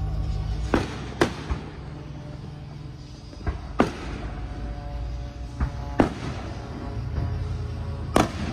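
Aerial firework shells bursting overhead: about eight sharp bangs at uneven intervals, some in quick pairs, each trailing off briefly.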